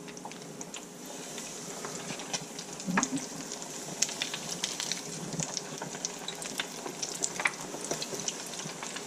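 Hot oil in an electric deep fryer sizzling and crackling as pieces of breaded fish roe are dropped in, the sizzle growing a little louder about a second in.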